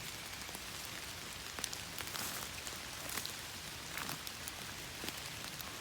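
Steady rain falling, with the sharp taps of single drops landing close by now and then.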